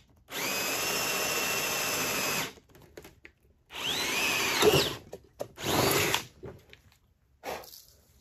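Cordless drill boring a bolt hole through an oak deck board, run in three bursts: about two seconds, then about a second with the motor whine rising and falling in pitch, then a short one, with brief pauses between. Faint handling clicks follow as the drill is set down.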